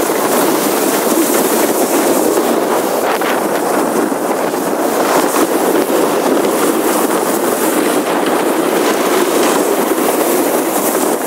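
Sled sliding fast down a steep, snowy driveway: a steady, loud scraping, rushing noise of the sled over the snow.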